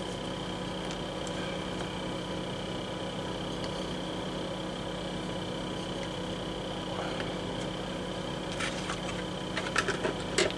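Steady mechanical hum of the workbench room, even and unchanging, with a few faint clicks near the end.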